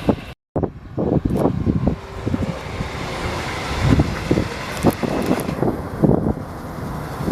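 Wind buffeting the microphone in irregular low gusts over a steady outdoor rumble, cut off by a brief dead gap about half a second in.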